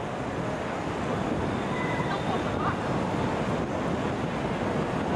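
Wind buffeting the microphone, a steady rough rush that swells slightly about a second in, with a couple of faint short high squeaks near the middle.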